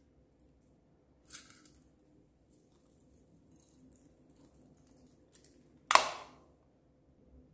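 A small clear plastic heart-shaped container is handled over slime, with a short rattle a little over a second in and faint scattered ticks. About six seconds in comes a loud, sharp plastic snap as its lid is pressed shut.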